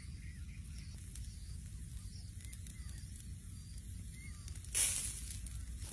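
Hot charcoal hissing sharply about five seconds in as butter and juices drip from a roasting whole chicken onto the embers, fading away within about a second, over a low steady rumble.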